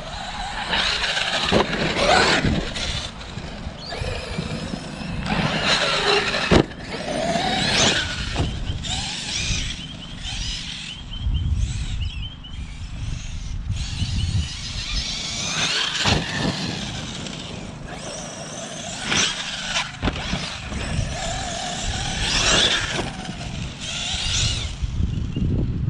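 Arrma Kraton 6S RC monster truck's brushless motor whining up and down in repeated bursts of throttle as it is driven. There is a sharp knock about six and a half seconds in.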